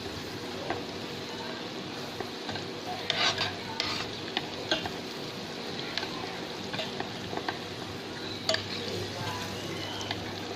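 Butter melting and sizzling in a pan, with a utensil clicking and scraping against the pan now and then as it is stirred.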